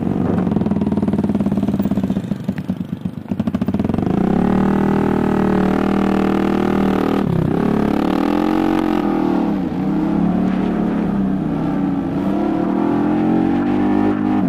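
Motorcycle engine running with the rider on board, its pitch rising and falling with the throttle, with sharp dips about seven seconds and about ten seconds in.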